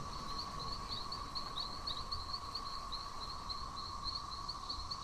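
Nature ambience of chirping creatures: short high chirps repeating unevenly about four times a second, over a steady mid-pitched hum and a low rumble.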